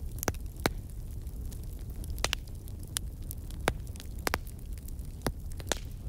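Crackling fire: irregular sharp pops and snaps, about a dozen, over a steady low rumble.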